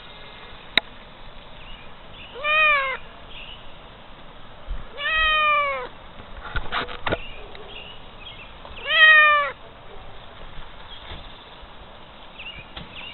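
A kitten meowing three times, each meow about half a second long and dropping slightly in pitch, with the last the loudest. A sharp click comes just under a second in, and a few more clicks come between the second and third meows.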